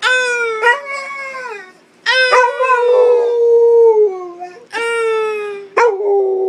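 Pit bull howling: several long howls in a row, each holding its note and then sliding down in pitch at the end.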